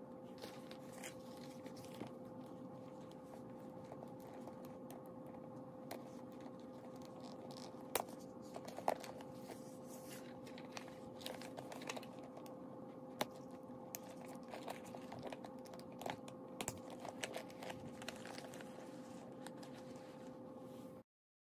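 Handling noise from a clear plastic crossbody bag and a fabric webbing strap: light crinkling and small scattered clicks, with two sharper clicks about eight and nine seconds in, over a steady low hum. The sound stops suddenly near the end.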